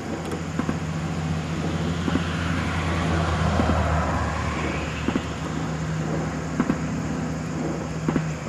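Layered ambient soundscape: a steady low hum under a rushing noise that swells and fades, loudest about three to four seconds in, with soft knocks about every second and a half.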